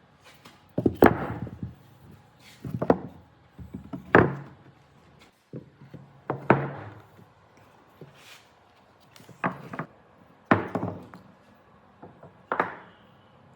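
Heavy blows striking wood, about seven at irregular intervals of one to two seconds, each a sharp knock with a short ringing tail.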